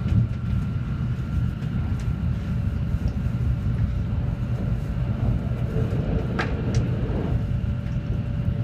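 Shinkansen bullet train running at speed, heard from inside the passenger car: a steady low rumble of wheels on rail and rushing air, with a couple of faint ticks near the end.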